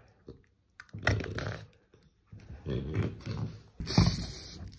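French bulldog grunting and growling in several short bouts as it mouths a rubber ball, with a sharper, louder burst about four seconds in.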